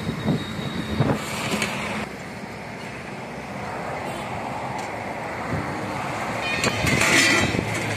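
Steady road traffic noise, with a few sharp clinks of a steel ladle against steel serving pots about a second in and again, louder, near the end.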